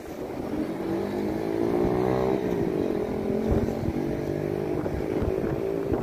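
A motor vehicle engine revs up, its pitch rising for about two seconds and then falling, and then runs on as a steady hum.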